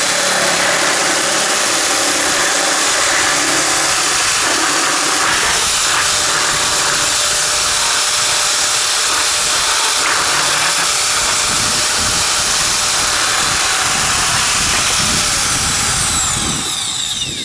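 Electric sheet metal nibbler running steadily as its punch chatters through galvanized sheet metal, cutting a circle. Near the end it is switched off and the motor winds down.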